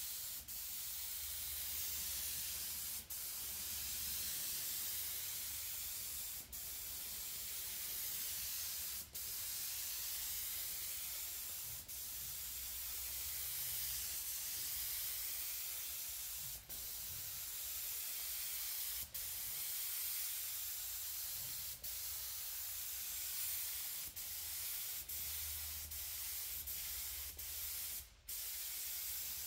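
Gravity-feed paint spray gun hissing steadily as compressed air atomises paint onto a car body. The hiss dips briefly every two to three seconds, between passes.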